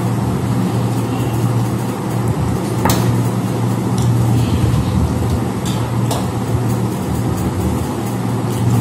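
A steady low hum under a noisy haze, with a few sharp clinks of steel tableware, about three, four and six seconds in, as a bowl and plates are handled during a meal.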